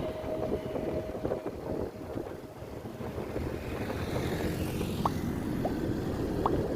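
A steady low rumble, with a held tone that fades out about a second and a half in and a few short, high rising chirps near the end.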